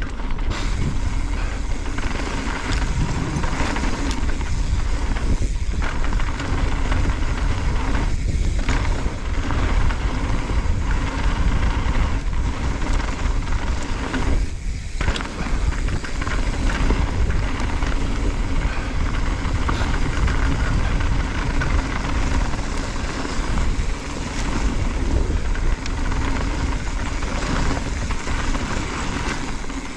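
Mountain bike riding downhill on a dirt and loose-gravel trail: tyres rolling over stones and the bike rattling, under heavy wind noise on the camera's microphone. The noise is steady apart from a few brief dips.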